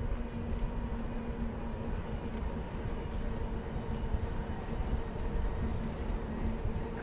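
Bicycle rolling along a paved trail: steady tyre rumble with a low, uneven rumble underneath and a faint steady hum.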